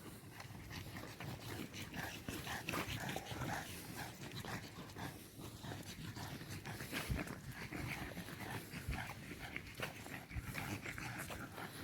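A dog panting, with irregular short rustling strokes throughout.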